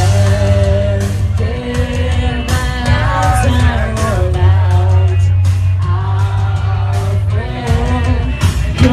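Live band music: a singer over a held bass line, with regular drum hits.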